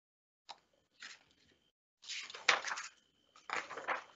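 A picture book being handled and opened: a couple of faint clicks, then two short bursts of rustling cover and pages with a sharp knock, about two seconds in and near the end.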